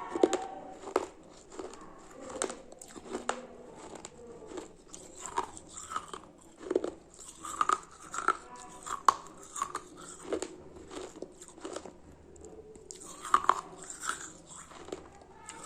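Close-up biting and chewing of something hard and crunchy: irregular sharp cracks and crunches, a few much louder bites among quieter chewing.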